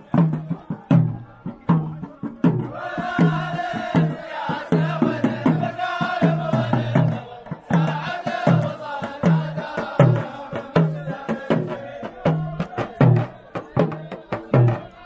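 Traditional Omani razha: a group of men chanting together over a steady beat of double-headed drums, about two to three strokes a second. The chant comes in a few seconds in, in two long phrases, and drops away near the end while the drums keep going.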